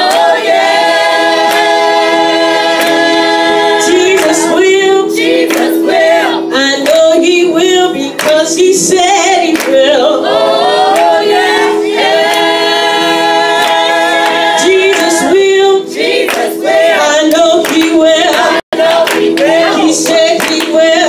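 Gospel singing: a woman's solo voice through a microphone holds long notes and slides through runs, with backing singers and hand-clapping. The sound cuts out for an instant near the end.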